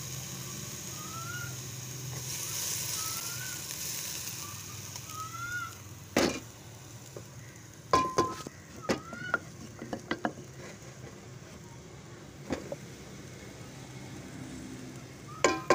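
Cauliflower and potatoes sizzling in a pressure-cooker pot over a gas flame, a steady hiss that dies down after about six seconds. After that, a wooden spatula knocks and scrapes against the pot in a run of sharp clacks as the vegetables are stirred and the paste is added.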